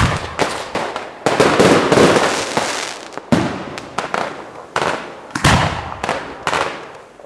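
Aerial fireworks heard close up from the firing position: a rapid series of sharp bangs as effects launch and burst, each followed by a fading crackle and echo, the volley dying down near the end.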